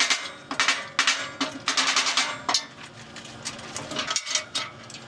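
Mallet striking a two-stroke dirt-bike exhaust silencer to knock it apart for repacking: a run of quick knocks for about two and a half seconds, then quieter with a few light clicks.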